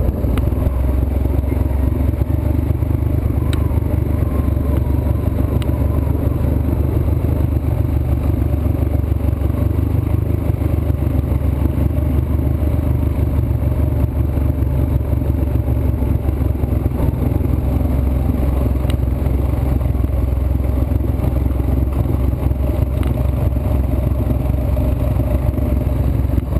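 Trail motorcycle running steadily under way on a rough dirt track, a continuous low rumble with clatter from the bumpy ground.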